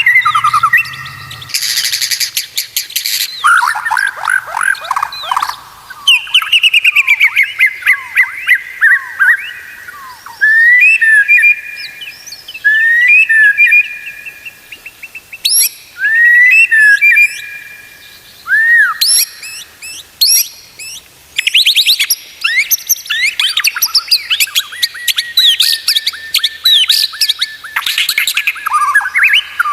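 White-rumped shama (murai batu) singing a loud, varied song of rapid trills and clear sweeping whistles, phrases repeated with short pauses between them.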